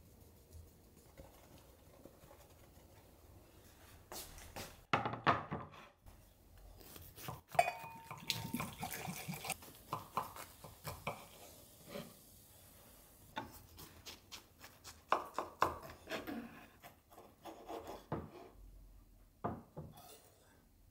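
A knife cuts through a baked cake and scrapes and taps on a wooden board, with knocks and clinks of plates and cutlery. It is quiet for the first few seconds, then a run of clatter follows, including one short ringing clink.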